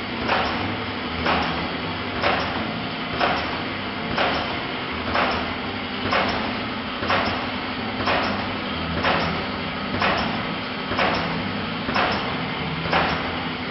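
Pouch packing machine running, its mechanism making one sharp stroke about once a second over a steady motor hum.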